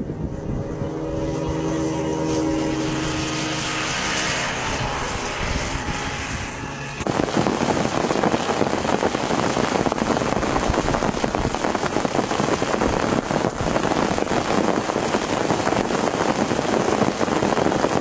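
Kid kart engines running steadily as two karts circulate. About seven seconds in this cuts off abruptly and a loud, steady hiss of heavy rain takes over.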